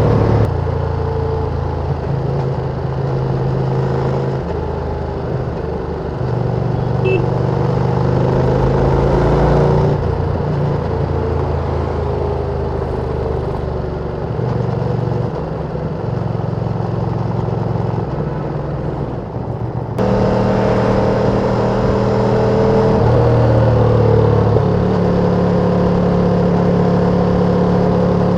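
Ducati Panigale V2's twin-cylinder engine on its stock exhaust running under way, its note holding and then stepping up and down as the throttle and gears change. About two-thirds of the way through the sound jumps suddenly louder and higher.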